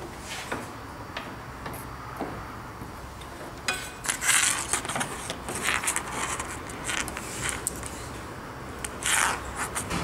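Hands handling thin wire leads at a small pin connector: scattered rustling and scraping, busier and louder from about four seconds in.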